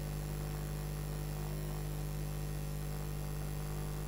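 Steady electrical mains hum with a faint even hiss above it.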